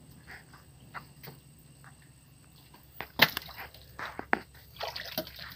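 Stones being shifted by hand: scattered knocks and scrapes, with a sharper knock about three seconds in and another a little after four seconds.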